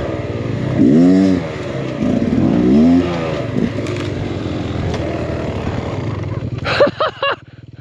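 Two-stroke Beta X-Trainer 300 dirt bike engine revving, its pitch rising and falling twice, then running on steadily. Near the end come a few quick sharp revs, and the engine drops back to a quieter idle.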